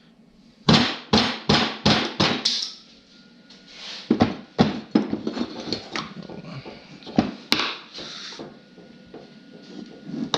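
Rubber mallet blows on a two-stroke snowmobile engine's crankcase and crankshaft, knocking a stubborn crank loose: a quick run of about six knocks, roughly three a second, then more irregular knocks and clatter.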